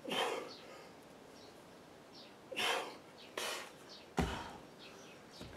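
A man's heavy, forceful breaths and exhales during a kettlebell lift, with a dull thud about four seconds in as the kettlebell is set down on dirt ground.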